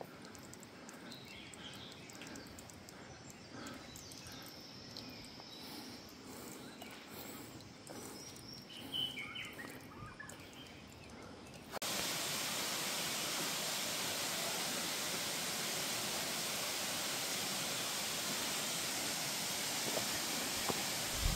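Quiet outdoor ambience with a few faint chirps. About two-thirds of the way through it cuts suddenly to a louder, steady rushing noise.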